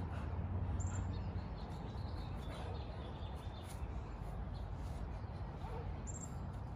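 Outdoor ambience: a steady low rumble with a few short, high bird chirps, one about a second in and another near the end.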